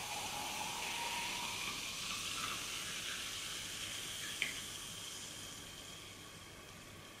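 Sprite poured from a can into a glass jar mug, the stream and fizz hissing steadily while the filling note rises in the first second. The pour thins and the fizz fades away, with a light tap about four and a half seconds in.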